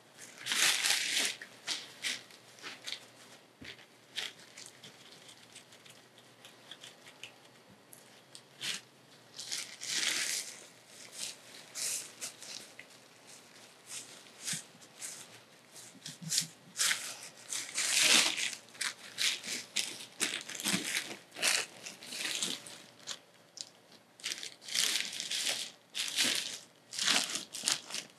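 Irregular bursts of rustling and crinkling from plastic and cloth being handled as clothing is put on a body.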